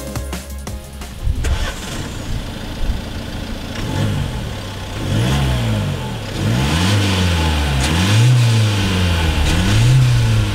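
The 2014 Nissan Qashqai's 1.6-litre turbo-diesel four-cylinder is revved at standstill. Its engine speed rises and falls about four times, each blip lasting roughly a second and a half.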